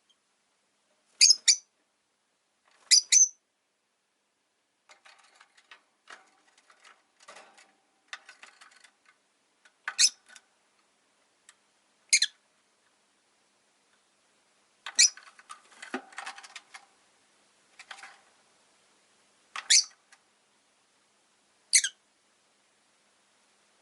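Rosy-faced lovebirds calling: seven short, shrill, high-pitched chirps a few seconds apart, with quieter clicky chattering between them.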